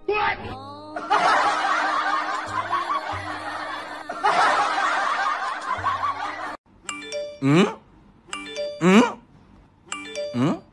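Added comedy sound effects: a stretch of canned laughter for about five seconds, then a short chiming effect with a sliding pitch, repeated about every second and a half.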